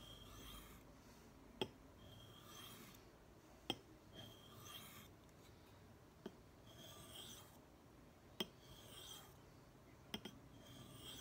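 Faint strokes of a knife blade rasping across a sharpening stone, about one every two seconds, with a light click between strokes.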